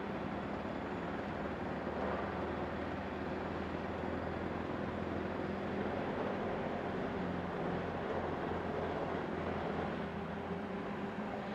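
A train at a railway station: a steady rumble with a low hum that fades near the end.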